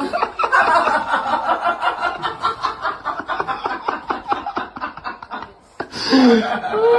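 A person laughing hard in rapid, repeated bursts for several seconds, breaking off briefly, then a short voiced laugh or exclamation near the end.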